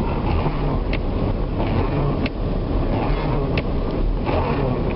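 Inside an all-wheel-drive van driving through deep snow on an icy road: a steady low rumble of engine and tyres, with a few sharp ticks about every second and a bit.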